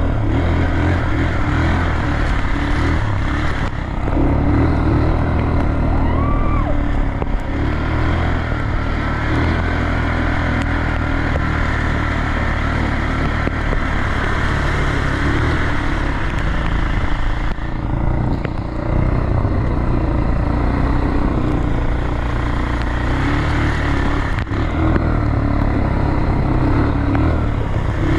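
ATV engine running as it is ridden, a steady low engine note under a constant rushing noise, easing off briefly a few times.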